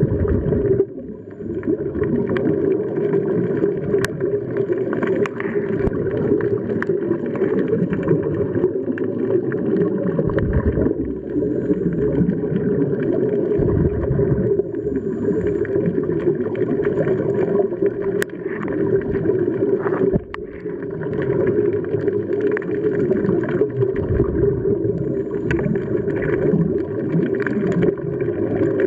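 Muffled, steady underwater rumble and bubbling from a scuba diver's regulator breathing and exhaled bubbles, heard through an underwater camera housing. It dips briefly three times, with a few faint clicks.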